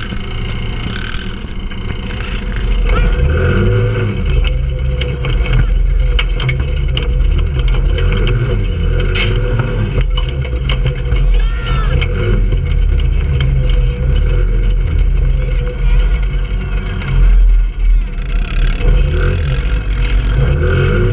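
Trailmaster 150 go-kart engine running and revving, its pitch rising and falling with the throttle as the kart drives over rough dirt, with scattered knocks and rattles.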